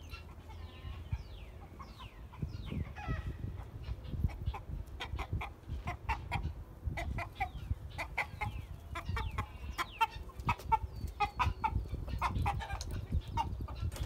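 Chickens clucking and calling in rapid short notes that grow busier and louder from about four seconds in, after a few falling calls in the first three seconds.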